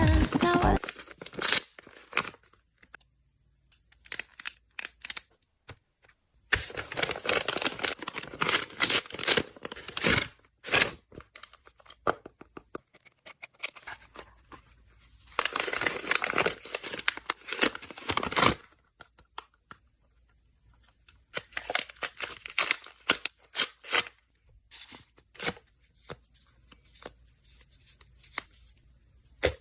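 Packaging being torn open and crinkled by hand, in irregular bursts of several seconds with quiet pauses between.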